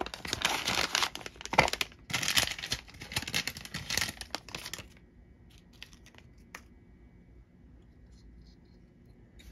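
Clear plastic packaging bag crinkling and rustling as it is handled and pulled away, with many sharp crackles, for about five seconds. After that the crinkling stops and there are only a few faint clicks.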